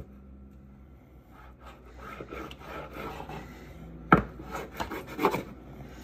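Plastic kids' knives sawing back and forth through strawberries and scraping on a wooden cutting board, with one sharp knock on the board about four seconds in.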